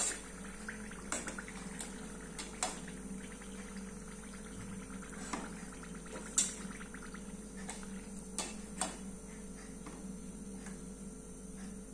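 Hot oil sizzling and bubbling around chakli frying in a pan, with a few sharp clicks and taps, the loudest about six seconds in. The bubbling has eased, the sign that the chakli are fried.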